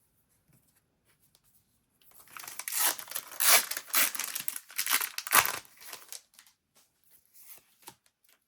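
Foil wrapper of a Disney Lorcana booster pack being torn open: about two seconds in, a loud stretch of tearing and crinkling lasting some four seconds, then lighter crinkles as the wrapper is handled.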